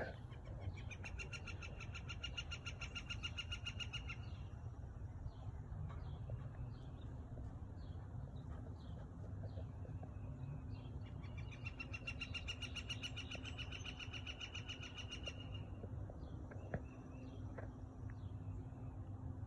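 Birds calling: two long, rapid trills of about three seconds each, one near the start and one about halfway through, with short chirps repeating about once a second between them.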